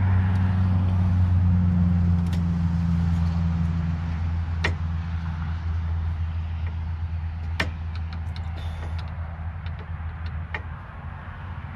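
Scattered sharp clicks from hands and a small tool working the quick-connect fitting and keeper clip on a transmission cooler line, over a low steady drone that slowly fades.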